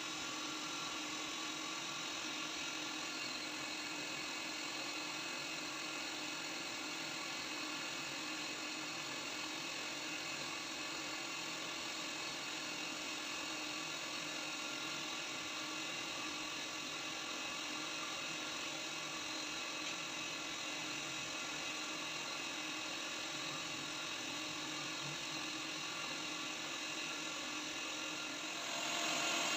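Bridgeport CNC vertical machining centre running steadily with a high spindle whine, likely engraving scale marks in an aluminium plate. It gets louder about a second before the end.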